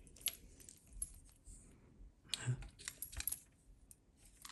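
Light, scattered clicks and taps of two sports watches being handled, their titanium-backed cases and rubber straps knocking and rubbing together, with a quick cluster of clicks about three seconds in.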